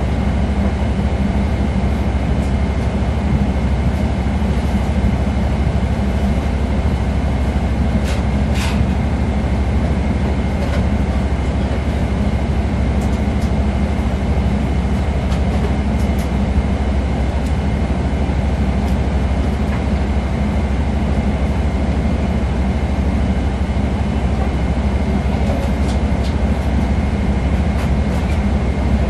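Steady cabin noise of a Boeing 777-300ER airliner: an even low rumble with a faint steady high whine, and a few light clicks.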